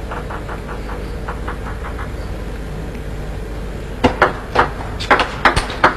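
Table tennis ball sounds: a run of light, quick taps in the first two seconds, then from about four seconds in a rally of sharp ball-on-bat and ball-on-table clicks a few tenths of a second apart. These sit over steady background hall noise.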